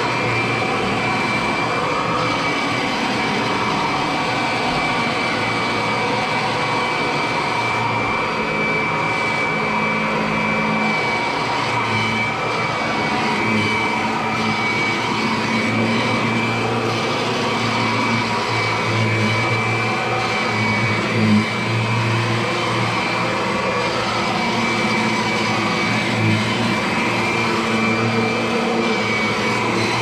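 Kirby upright vacuum cleaner running steadily as it is pushed back and forth over carpet, a steady high whine over the motor noise. A brief knock about two-thirds of the way through.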